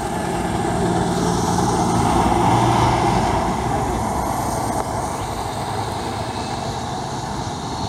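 Road traffic: a motor vehicle passing close by on the highway, its engine and tyre noise swelling to a peak about three seconds in and then fading into steady traffic noise.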